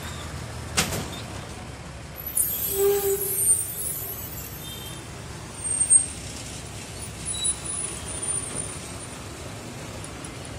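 Street traffic with a bus passing close by. About two seconds in, a hiss with a short tone, typical of a bus's air brakes releasing. A brief louder bump comes about six seconds in.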